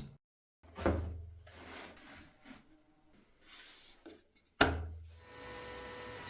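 Wood being handled: two dull thumps, one about a second in and one near the end, with rubbing and scraping between them.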